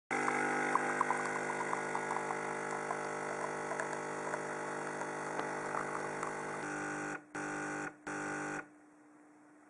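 A steady electric buzzing hum with faint crackles over it. A further tone joins near the end, then the sound drops out briefly twice and cuts off, leaving a faint hum.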